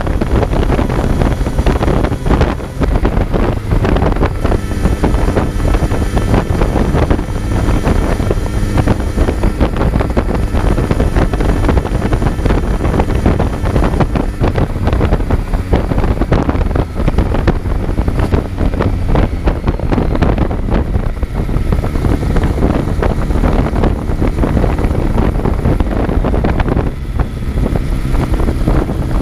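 Kawasaki Z900's inline-four engine running hard on the road, heard from on board, its pitch rising and falling with the throttle, with wind rushing over the microphone. The engine note dips briefly near the start and again near the end.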